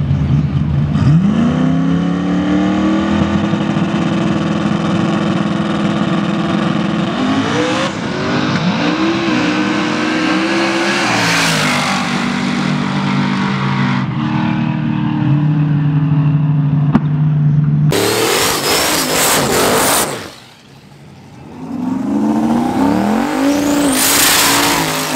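Drag-racing cars' engines revving hard and accelerating away from the line, in several short edited clips, the pitch rising and falling with each run. Near the end a car revs high with a rush of tyre-spin noise as it does a burnout.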